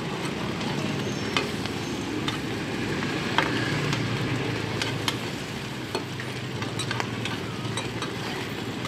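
Bột chiên (rice-flour cake cubes) and eggs sizzling in oil on a large flat frying pan, with a metal spatula and ladle clinking and scraping against the pan in scattered sharp strokes.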